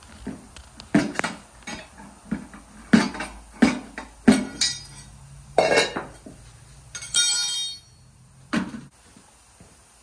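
Hammer blows on a steel lawn mower wheel rim, knocking the back side of the tire bead off the wheel: about a dozen irregular sharp metallic knocks and clanks. A ringing metal clatter follows about seven seconds in.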